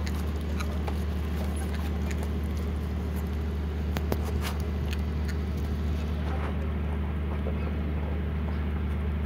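Puppies chewing and gnawing on chicken: scattered small clicks and crunches, one sharper crack about four seconds in, over a steady low hum.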